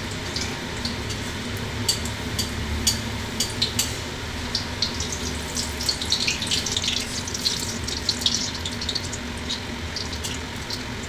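A batter pitha deep-frying in hot oil in a kadai: steady sizzling with many sharp crackles and pops of spattering oil as the cake puffs up.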